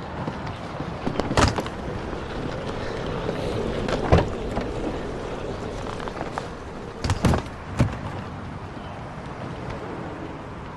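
Steady background noise with a few soft knocks and clicks scattered through it: one early, one about four seconds in, and a small cluster of three a little after the middle.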